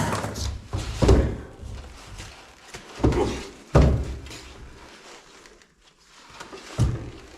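A heavy, welded steel tractor seat being handled and knocked about, giving about five heavy thuds spread through a few seconds.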